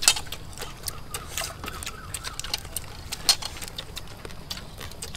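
Several people eating with their hands, chewing and smacking their lips: irregular sharp wet clicks, a few at a time, over a low background hum.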